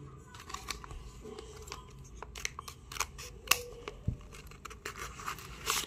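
A homemade paper blind bag being handled and torn open: irregular crackles and rips of paper, with a longer tear near the end.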